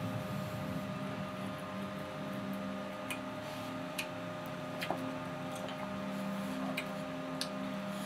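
Steady background hum with a few faint clicks and smacks from chewing on fried chicken.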